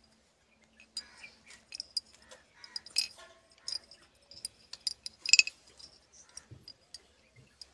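Thin iron rod tapping and scraping against the inside of a small glass bottle as pieces are worked inside it: irregular light clicks and clinks, with two louder ones about three and five seconds in.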